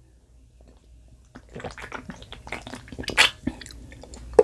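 Close-miked wet mouth sounds of drinking from a can and eating: swallows, clicks and smacks that begin about a second and a half in, with one sharper click near the three-second mark.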